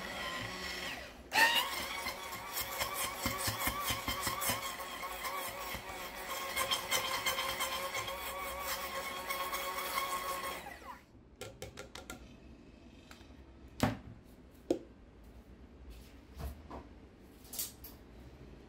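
Electric blender motor running, whirring basil leaves with water and oil into an emulsified basil mayonnaise. It cuts out briefly and restarts with a sharp knock about a second in, then switches off about eleven seconds in, followed by a few scattered knocks and clicks.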